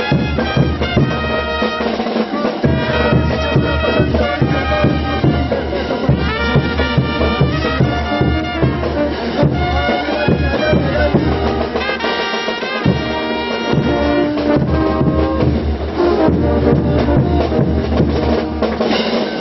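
A brass band with drums playing a dance tune: trumpets and trombones carry the melody over a steady drum beat.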